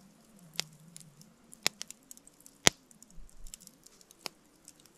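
Wood campfire burned down to embers, crackling with faint ticking and four sharp pops, the loudest about two and a half seconds in.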